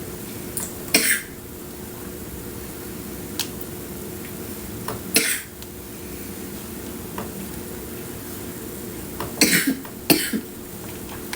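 A woman coughing, sick with a cough: single coughs about a second in and about five seconds in, then two close together near the end. A steady low hum runs underneath.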